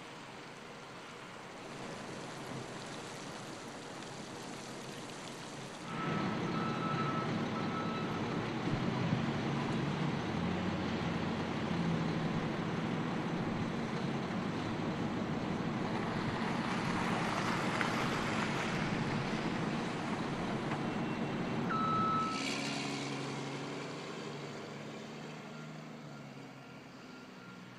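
A heavy truck's engine running amid traffic noise, with brief high-pitched beeps.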